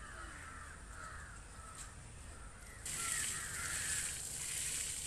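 Crows cawing over and over. About three seconds in, an even hiss comes in and stays.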